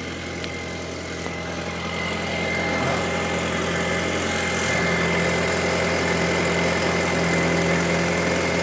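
Audi TT Mk1's 1.8T turbocharged four-cylinder engine idling just after a restart, with a thin steady high whine over the idle; it gets louder a few seconds in. The idle is a bit juddery, which the owner puts down to a slight misfire from worn spark plugs.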